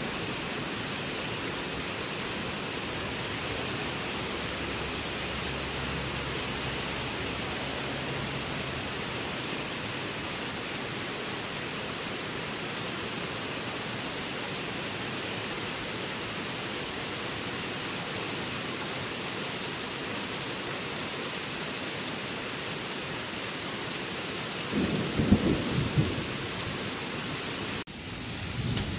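Steady rain hiss during a thunderstorm, with thunder rumbling: a faint low rumble about six seconds in and a louder peal of thunder near the end. The sound cuts off abruptly just before the end.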